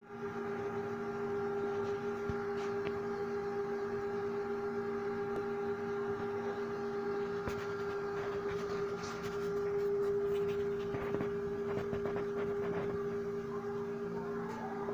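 Homemade egg incubator running: a steady electric hum with a clear, constant pitched tone, likely from its small fans. A few light knocks and rustles come partway through.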